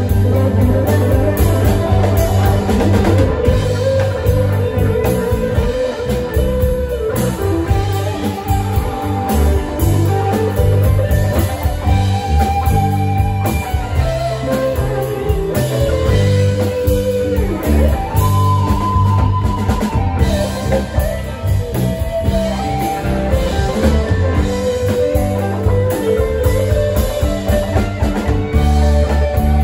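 Live rock band playing an instrumental jam: electric guitars over electric bass, drum kit and keyboard.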